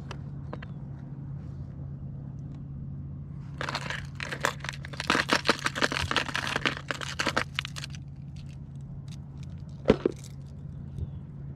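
Minn Kota electric motor on an Old Town 106 kayak running with a steady low hum. A burst of crackling and rustling runs for a few seconds through the middle, and there is one sharp knock near the end.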